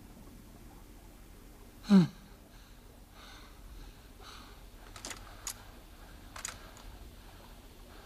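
A single short cry that drops sharply in pitch, about two seconds in, followed a few seconds later by three or four faint clicks.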